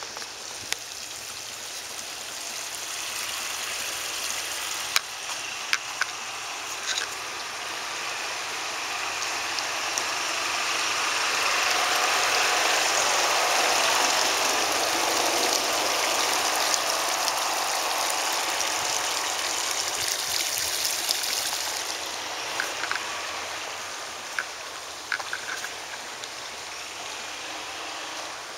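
Tiered outdoor fountain's jets splashing into its basin: a steady rush of falling water that swells to its loudest about halfway through, then fades.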